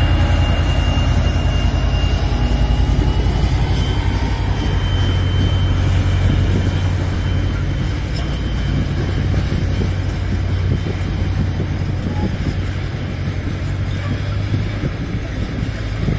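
Soviet-built M62 'Gagarin' diesel locomotive's two-stroke V12 engine running under load as it hauls a train of tank wagons past, with the wagons' wheels rolling over the rails. The low engine drone is strongest at first and eases off in the second half as the locomotive draws away, leaving the rolling of the wagons and a thin high wheel whine.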